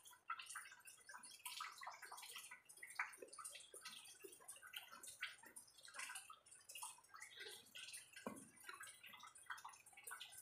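Faint, irregular patter of small clicks and ticks, with one slightly stronger tick about eight seconds in.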